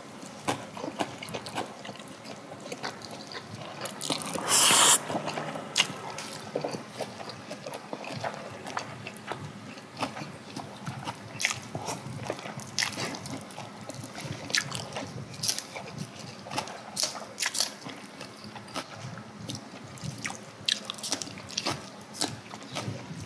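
Buckwheat noodles being slurped and chewed by two people: wet mouth clicks and smacks throughout, with one louder, longer slurp about four and a half seconds in.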